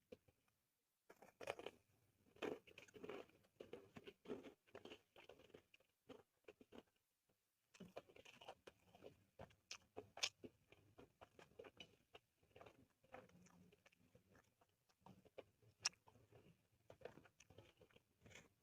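Faint, close-up chewing of a mouthful of food: soft crunches and wet mouth clicks in irregular bursts, pausing briefly near the start and again about seven seconds in.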